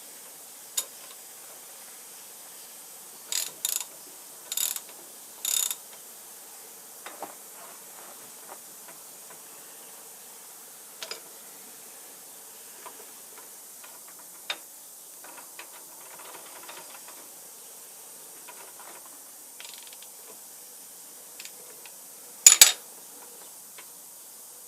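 Hand tools working on the metal parts of an old shaper's cross slide: scattered clicks and clinks, with several short rasping bursts and one louder one near the end.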